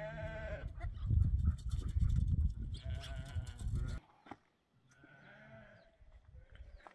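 Goats bleating: a wavering bleat at the start and another about three seconds in, over a loud low rumble that cuts off about four seconds in. After that come fainter bleats.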